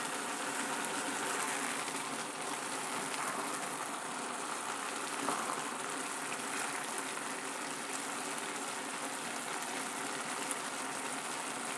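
Pot of rice and vegetables boiling under its lid: a steady, even hiss of bubbling water.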